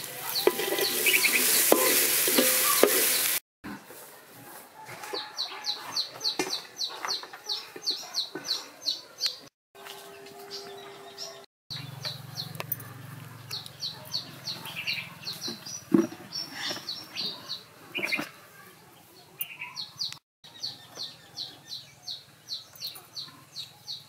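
A wooden spatula scraping and stirring corn kernels in an aluminium wok for the first few seconds. After that, birds call outdoors in rows of short, high chirps repeating about three times a second, with a few lower calls between.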